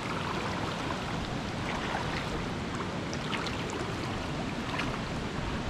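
A mountain stream flowing over rocks, a steady rushing of water, with a few faint light ticks scattered through it.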